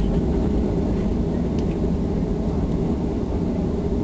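Steady cabin rumble of a Southwest Boeing 737, jet engine and rolling noise heard from inside the cabin as the plane moves along the ground.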